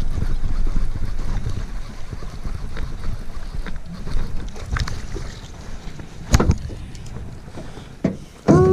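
Wind rumbling on the microphone, strongest in the first couple of seconds and then easing, with a single sharp knock about six seconds in.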